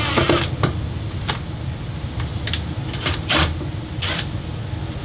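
A few sharp metallic clicks, some with a short high ring, from the sheet-metal mounting tabs of a bathroom fan housing being bent and handled. A steady low rumble runs underneath.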